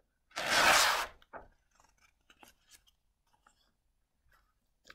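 A picture-book page being turned: one paper swish lasting under a second, about half a second in, then faint rustles and taps as a hand smooths the new page.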